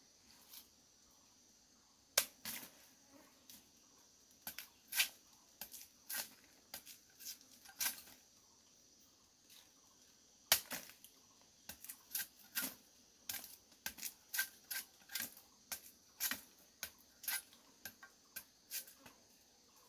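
A series of sharp taps or knocks, scattered at first and then coming about two or three a second in the second half. A faint steady high hiss lies underneath.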